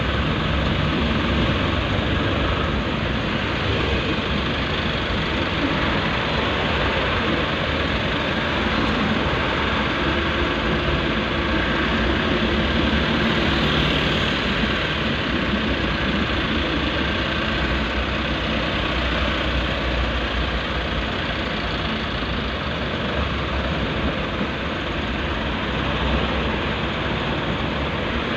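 Steady car engine and road noise heard from inside the car's cabin as it creeps forward in slow traffic.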